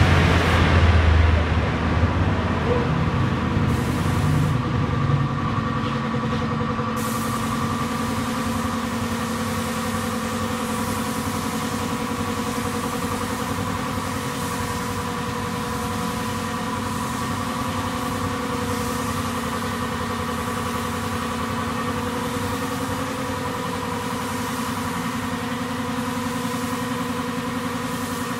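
Compressed-air paint spray gun hissing as it sprays, over the steady hum of an air compressor; the hiss comes on a few seconds in and then holds steady.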